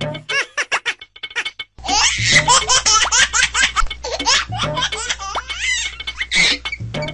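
Laughter sound effect over background music: rapid high-pitched peals of a baby's laughing, growing louder about two seconds in.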